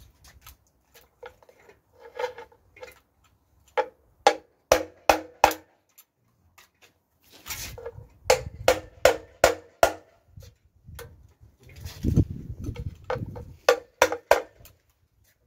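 Sharp clicks and taps that ring briefly, in short runs of three or four a second, from hand tools working on a bare BMW N47 diesel engine block; softer low knocks and rustling between the runs.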